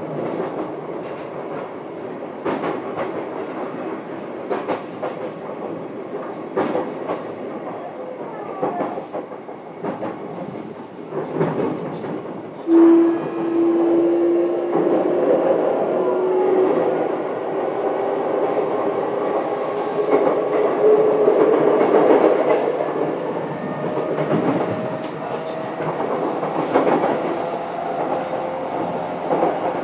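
Inside a JR East E233-7000 series train's motor car while running, with wheels clacking over rail joints. About halfway through, the VVVF inverter and traction motors cut in with a sudden whine that climbs steadily in pitch as the train accelerates.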